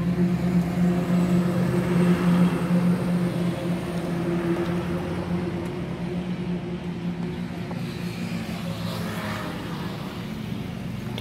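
Steady engine hum with a constant pitch, strongest in the first few seconds and easing off slightly after.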